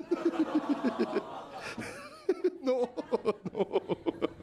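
Laughter in quick rhythmic bursts, once at the start and again from about two seconds in, after a roast joke.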